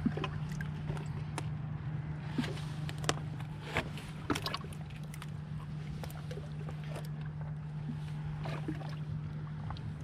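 Small waves lapping against the reservoir's edge in irregular splashes and slaps, over a steady low hum.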